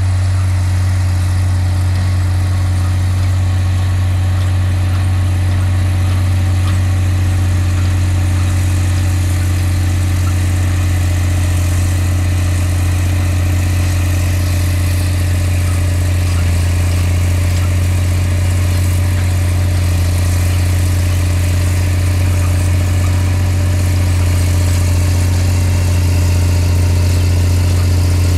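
Diesel engine of a motor scraper (earthmover) running at steady revs as the machine drives along: a constant low drone that does not rise or fall.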